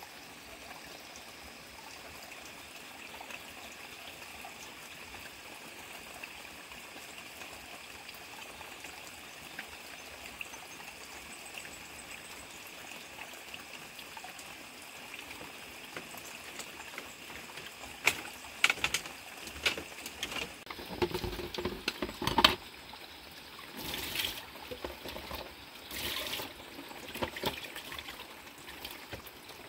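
Steady trickle of running water. From about 18 seconds in come a series of sharp clinks, knocks and short splashes as a bowl is washed by hand in a plastic basin of water.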